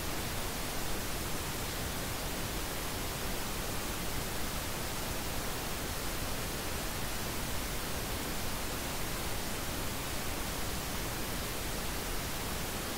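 Steady hiss of static noise spread evenly from low to high pitch, with no tone, rhythm or change in level.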